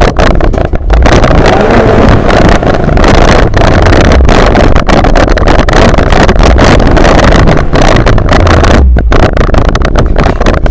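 Vehicle engine running at low speed, mixed with loud, rough wind buffeting on the mounted camera's microphone.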